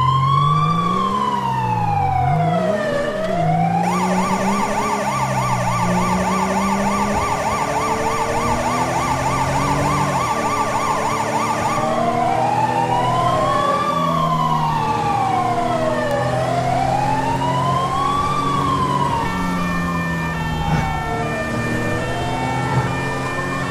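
Police siren wailing in slow rising and falling sweeps, switching to a fast yelp about four seconds in, back to the wail around twelve seconds, and to a stepped tone pattern near the end. Under it, a car engine revs up through its gears again and again, as in a chase.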